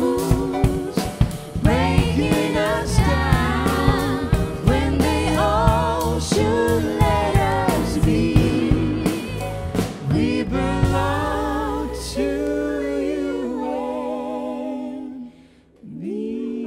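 Gospel vocal group singing with a band and a steady beat of drum hits; about eleven seconds in the drums stop and the voices hold long closing notes that fade out, and a new sustained tone comes in near the end.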